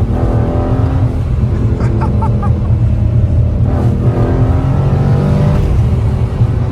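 2020 Dodge Scat Pack's 392 (6.4-litre) HEMI V8 running loud under way with its mid mufflers deleted, the exhaust pitch rising and falling as it drives through the gears.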